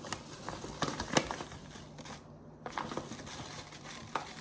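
Irregular sharp clicks and knocks of kitchen utensils against pots and plates as food is dished up.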